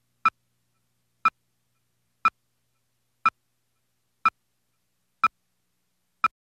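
Countdown leader beeps: a short electronic beep once a second, seven times, with silence between. They mark the seconds counting down to the start of the programme.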